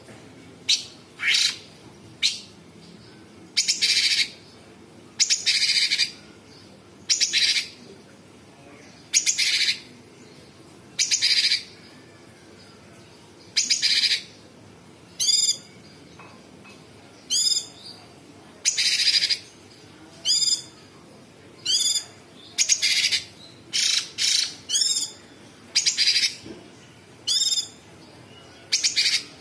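Blue-winged leafbird (cucak cungkok) singing in short loud bursts, one every second or two. The phrases mix harsh, rasping notes with quick sweeping whistles.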